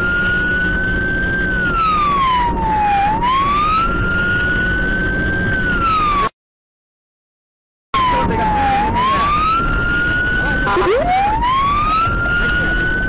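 Police car siren wailing in slow rising and falling sweeps over engine and road noise, heard from inside the car. It drops out to dead silence for about a second and a half midway, and later the pitch falls sharply and climbs back up.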